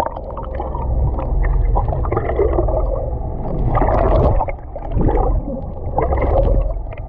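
Muffled underwater water noise picked up by a submerged camera: a steady low rumble with gurgling swells every second or two.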